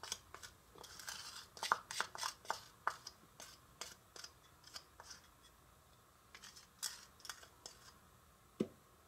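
A small wooden spoon scraping cake batter out of a small plastic bowl into a metal cake pan: quick irregular scrapes and light clicks through the first seven seconds or so, then a sharper tap near the end.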